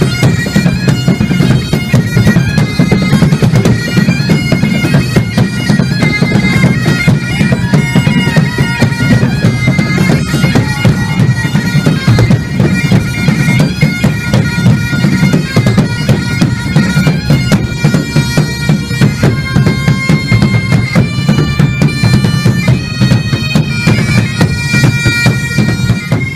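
Bagpipe music: a steady low drone under a high, shifting melody.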